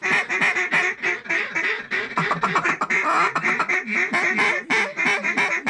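Mallard quacking and chattering, a fast, unbroken run of quacks and chuckles with no pause.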